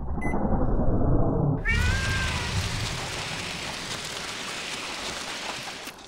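Cat caterwauling. A low rumble gives way, about a second and a half in, to a harsh hiss with a drawn-out cry falling in pitch, and the hiss runs on almost to the end.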